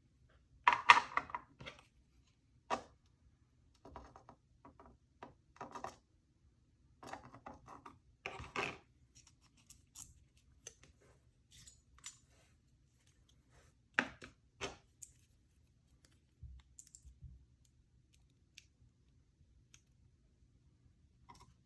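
Small metal clicks, taps and rattles from handling a pin tumbler lock's pins, springs and picking tools during disassembly. They come irregularly, with the loudest cluster about a second in and others around the middle.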